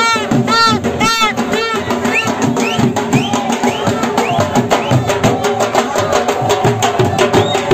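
Marching drummers beating barrel drums with sticks in a fast, steady rhythm. Short high notes repeat about twice a second over the drums for the first second and a half, then give way to a string of rising whistle-like glides.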